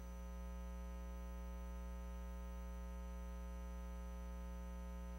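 Steady electrical mains hum with a long stack of even overtones, a low buzz that does not change.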